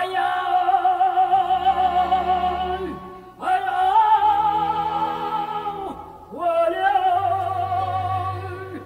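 Operatic female soprano singing three long held notes with a wide vibrato over sustained low orchestral notes, in a studio recording. Each note swoops up into place and slides down at its end, with short breaks about a third and two thirds of the way through.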